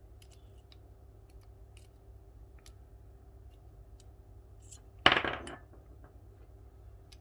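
Small metal parts of a disassembled lock cylinder being handled: scattered light clicks and taps, with one louder metallic clatter that rings briefly about five seconds in.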